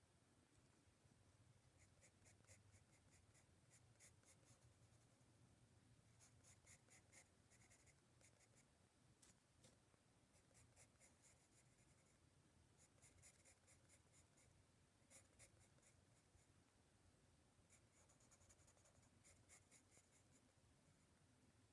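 Faint pencil scratching of a Colore sketching pencil on Master Class sketch-pad paper. Short quick strokes come in bursts of about a second, with pauses between them.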